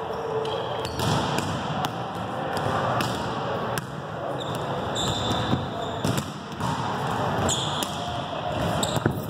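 Volleyballs bouncing and thudding and sneakers squeaking on a hardwood gym floor, echoing around a large hall, with short squeaks about five seconds in and again near the end.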